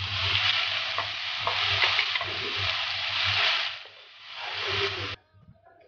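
Ginger, garlic and onion paste sizzling as it hits hot oil with cumin seeds in a steel kadai. The sizzle dips about four seconds in, swells again and cuts off suddenly near the end.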